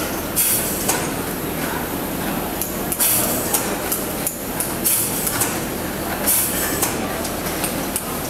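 Steady background din with irregular knocks and clatter, short bursts of hiss, and faint voices.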